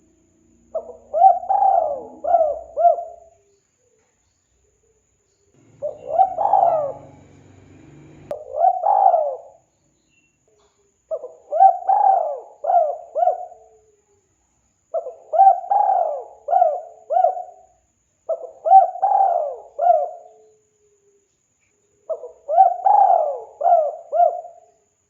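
Spotted dove (tekukur) cooing: six repeated phrases of several short coos each, each phrase about two to three seconds long, with a pause of a couple of seconds between phrases.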